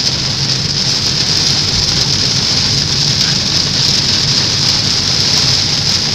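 Heavy rain hitting a moving car's roof and windshield, heard from inside the cabin as a steady hiss over a low rumble of the car's engine and tyres on the wet road.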